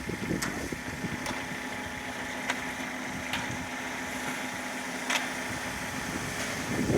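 Engine of a concrete mixer truck running steadily, with a few sharp ticks at uneven intervals.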